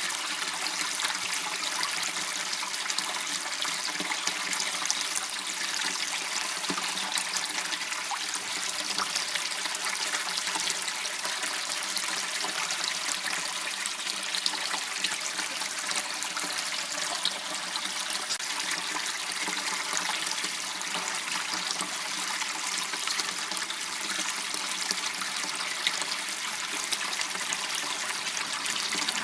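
Water flowing steadily in a small waterway channel: an even, unbroken trickling rush.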